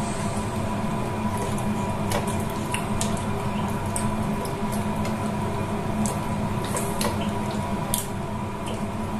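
Wet squishing and scattered light clicks of soft, wet food being worked by hand, over a steady hum.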